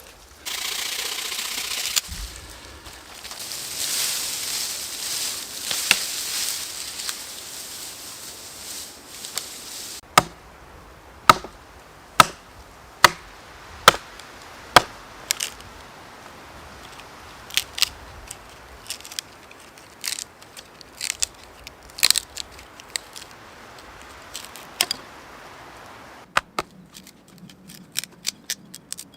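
Wood being worked with a blade: a rasping cut for the first ten seconds, then sharp chopping strikes on dry pine about once a second, thinning out, with lighter, quicker taps near the end.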